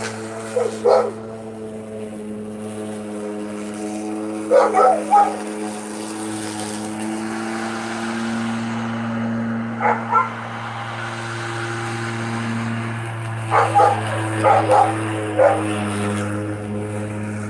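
Electric lawn mower running with a steady hum, while a dog barks in short runs of two or three barks several times.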